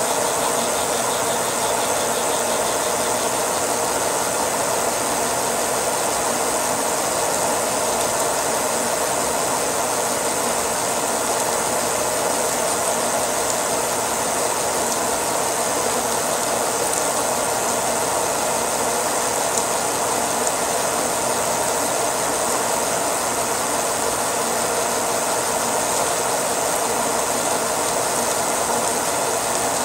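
Milling machine running steadily as a helical end mill slowly feeds down into a steel pad, cutting a pocket with a continuous grinding chatter of chips, over a steady hiss from the coolant mist spray.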